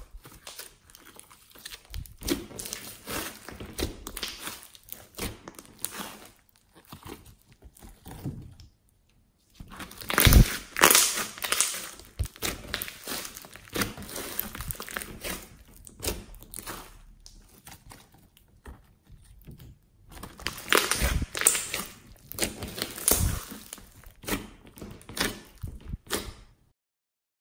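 Hands squishing, stretching and poking pink fluffy slime mixed with foam beads: sticky crackling and popping, with a few louder pops about ten, twenty-one and twenty-three seconds in. It stops shortly before the end.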